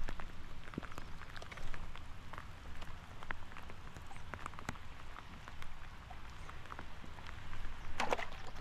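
Light rain pattering as many irregular small ticks over a steady low rumble, with one louder noise near the end.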